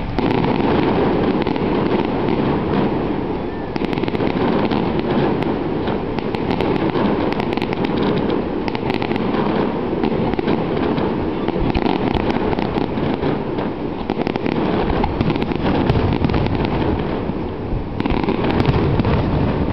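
Aerial firework shells bursting in a continuous barrage, dense crackling and pops in quick succession with no pause.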